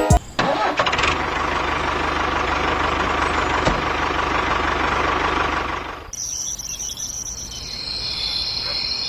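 A small engine runs steadily with a fast, even pulse for about six seconds, then cuts off abruptly. After that comes a quieter background of insects chirping in steady high trills.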